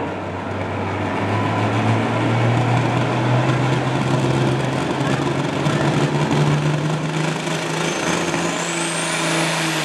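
Mack semi tractor's diesel engine revving up hard under load on the pulling sled, its pitch climbing over several seconds and then held high. Near the end a thin high whistle rises above it: the turbocharger spooling up.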